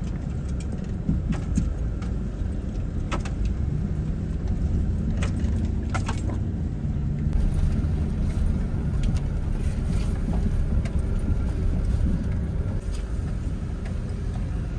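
Inside a pickup truck's cab crawling over a rough dirt trail: a steady low engine and road rumble, with loose things in the cab rattling and clicking now and then as the truck jolts.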